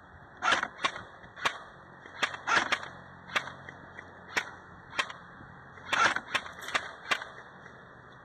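Airsoft guns firing single shots: about fifteen sharp cracks at an uneven pace, some in quick pairs, from about half a second in until about seven seconds in.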